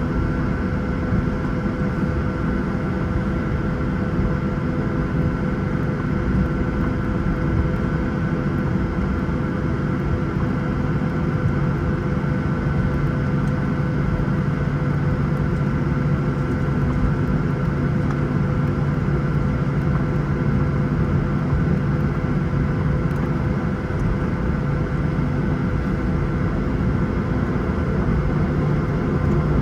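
Boeing 737-900ER's CFM56-7B turbofan engines running steadily at low power, heard inside the cabin as a constant drone with a steady whine over a low rumble, as the airliner is on the ground before takeoff.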